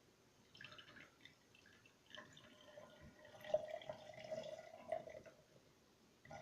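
Faint trickling and dripping of juice poured from a juice box into a glass, starting about two seconds in and lasting a few seconds, after a few small clicks.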